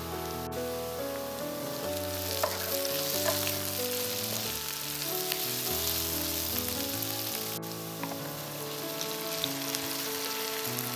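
Food sizzling in a frying pan, the sizzle strongest in the middle, with a couple of light utensil clicks, over background music with slow held chords.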